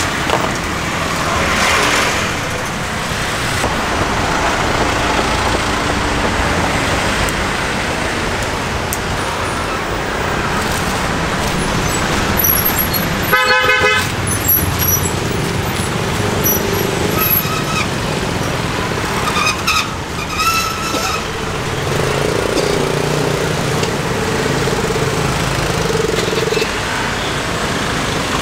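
Street traffic of cars and motorbikes running past, with short vehicle horn toots about halfway through and again a few seconds later.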